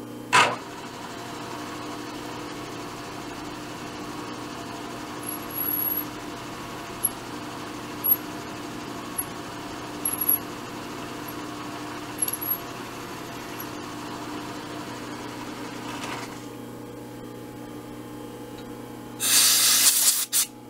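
Milling machine spindle running with a long center drill being fed into a metal part, a steady hum with a few short high squeaks and ticks as it cuts. A sharp click comes just after the start, and a loud hiss about a second long near the end.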